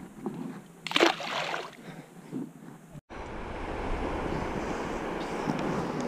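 A few scattered short handling noises, the loudest about a second in. After an abrupt cut, a steady wash of water sloshing with wind noise.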